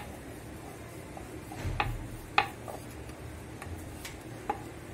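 Wooden rolling pin rolling out bread slices on a round wooden rolling board, a low rumble as it rolls, with a few sharp clicks of wood knocking on wood, the loudest about two and a half seconds in.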